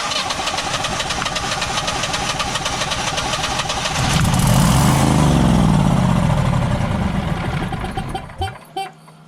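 Generac Guardian 16 kW standby generator engine cranking on its starter for about four seconds, catching and running briefly while the speed sags, then dying about a second before the end. A steady low hum remains after it stops. The owner suspects the controller is shutting it down on a no-RPM-sense fault.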